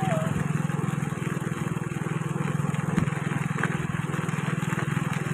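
Small motorbike engine running steadily at cruising speed on a dirt road, with one short knock about three seconds in.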